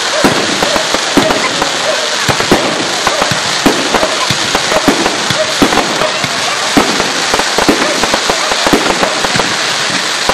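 Aerial fireworks going off in rapid succession: a dense, continuous crackle with many sharp bangs and pops, several a second.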